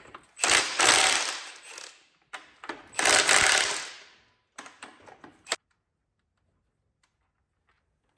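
A power tool with a fast rattle runs in two short spurts of about a second and a half each, both starting abruptly and dying away, followed by a few light clicks.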